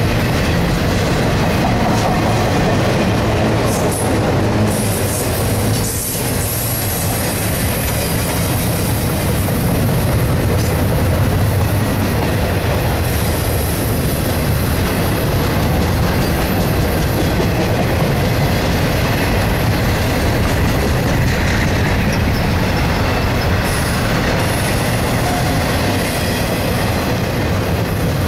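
Double-stack intermodal container well cars of a freight train rolling past close by at speed: a steady, loud rumble of steel wheels on the rails.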